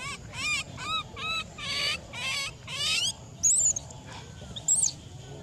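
Baby macaque crying: a run of about seven short arched cries, roughly two a second, then two higher, shrill squeals. It is crying from hunger, begging for food.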